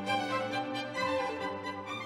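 Closing theme music led by bowed strings, the sound beginning to fade out in the second half.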